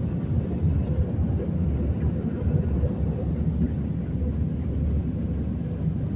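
Steady low rumble of an Airbus A320-200's twin jet engines.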